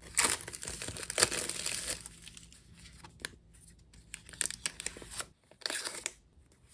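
Cellophane shrink wrap crinkling and tearing as it is slit and stripped off a small cardboard box, loudest in the first two seconds. Quieter rustles and clicks follow as the box is opened and the stack of plastic sleeves is slid out.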